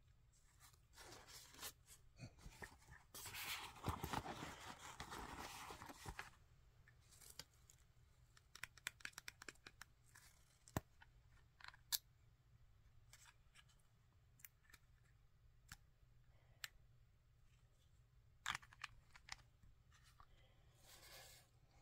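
Faint close handling of cosmetic packaging: a plastic squeeze tube and a small cardboard carton rustle against each other for a few seconds near the start, then give scattered light taps and clicks, with two more short rustles near the end.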